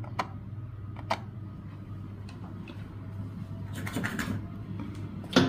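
Light clicks and taps of multimeter probe tips touching the pins of an LED TV's T-con board, over a steady low hum, with a sharper click near the end.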